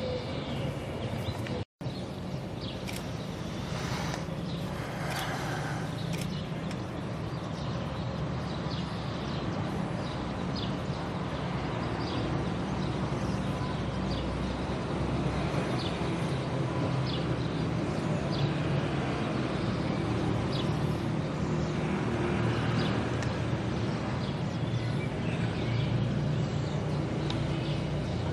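Steady low hum of outdoor background noise, like road traffic, with a few faint short high chirps now and then.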